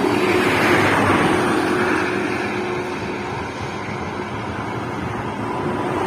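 Intercity bus driving past at highway speed on a toll road: a rush of tyre and engine noise that is loudest about a second in and then fades to steady traffic noise.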